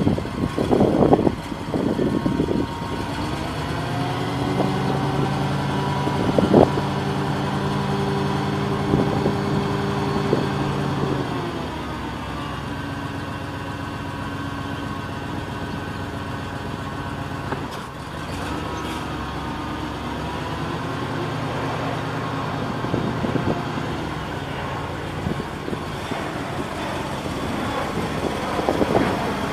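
Caterpillar T180 forklift engine running. It rises to a higher, steadier note for several seconds and then drops back, while the forks are raised and tilted. A few clunks are heard near the start and one about six seconds in.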